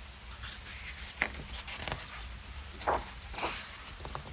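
Crickets chirring steadily as a night ambience sound effect, with two brief soft taps or rustles, about a second in and near three seconds.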